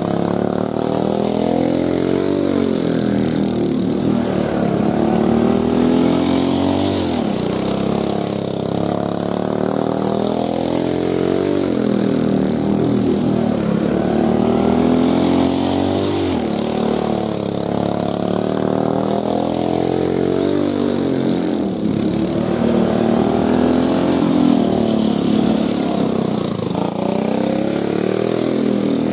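Single-cylinder 5 hp Briggs & Stratton Raptor engine of a dirt-track racing kart at speed on a qualifying run. It revs up along each straight and drops off into each turn, rising and falling every four to five seconds.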